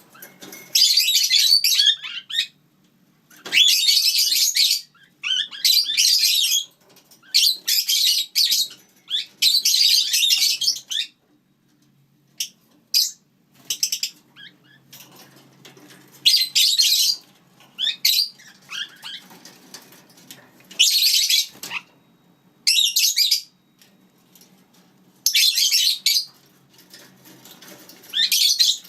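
Lineolated parakeets calling in repeated high chattering bursts of about a second each, a dozen or so, with short pauses between.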